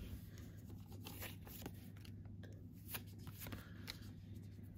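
Pokémon trading cards being flipped through one by one in the hand, the card stock sliding and flicking softly in scattered light clicks.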